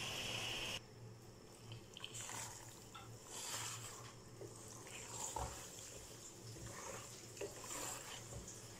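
Wooden spatula stirring boiled penne into thick mince sauce in an aluminium pot: soft scattered squelches and light scrapes. A steady hiss cuts off about a second in.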